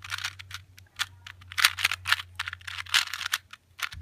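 A plastic 2x2 Rubik's cube being twisted quickly by hand to scramble it: its layers click and rattle in fast, irregular bursts.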